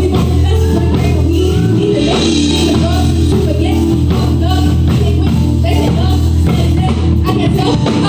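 Live band playing with a woman singing into a microphone over a heavy bass line. The low bass drops away about seven seconds in.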